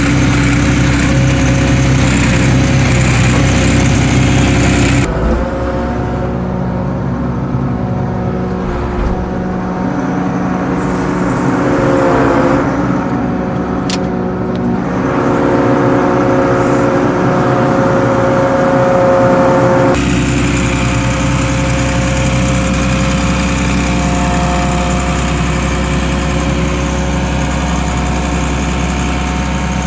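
Volvo TD61ACE six-cylinder turbo-diesel engine of an Åkerman H7Mc wheel excavator running steadily as the machine maneuvers. For a stretch in the middle it is heard from inside the cab, with a brief rise and fall in engine pitch.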